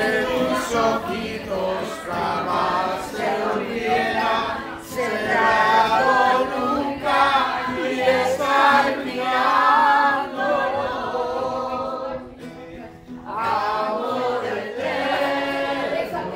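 A song sung by several voices together over music, with a short lull about twelve seconds in.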